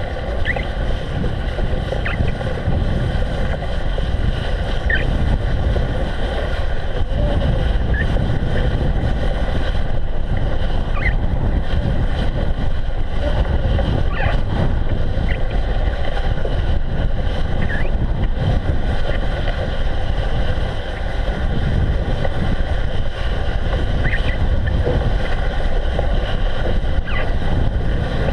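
Wind buffeting the microphone over the rumble of a bicycle rolling along a snowy path, with faint short squeaks now and then.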